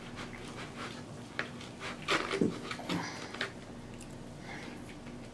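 Knife and fork cutting steak on a plate, with clicks and scrapes of the cutlery and close-up mouth and chewing sounds, loudest in a cluster about two to three seconds in.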